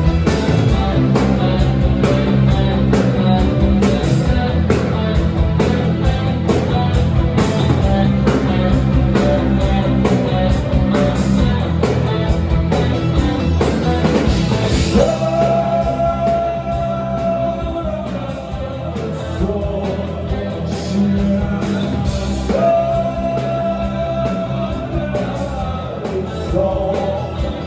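A gothic rock band playing live, with electric guitars and drums and a singer's voice over them, heard from the crowd in the venue. About halfway through the music thins out and long held notes sound over it.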